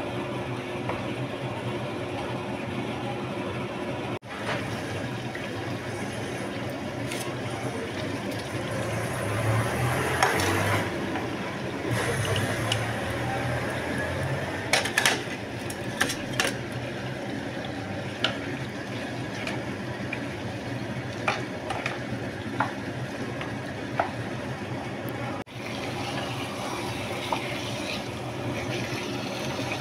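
Steady sizzle of spices and paneer frying in oil in a non-stick pan, with scattered sharp clicks of a utensil against the pan from about halfway through.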